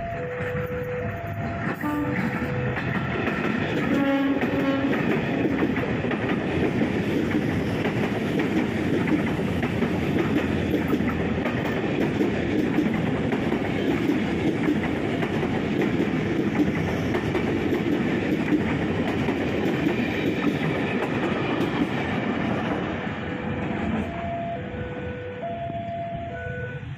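Electric commuter train passing close by, a loud steady rumble with wheels clattering over the rails. A few short horn blasts sound in the first seconds and again near the end.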